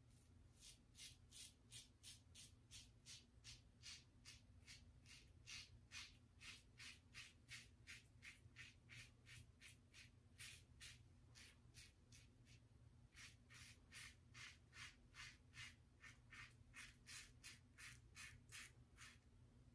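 Double-edge safety razor scraping stubble through shaving lather in short strokes, about two a second, with a brief pause about two-thirds of the way through.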